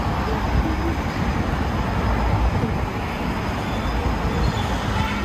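Steady low rumble of city street noise, traffic mixed with wind buffeting the microphone, with no distinct event standing out.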